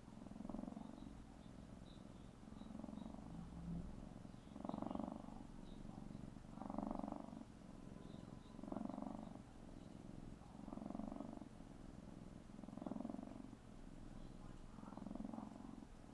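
Tabby kitten purring while it kneads, a sign of contentment. The purr is steady and swells in a regular rhythm about once every two seconds as the kitten breathes in and out.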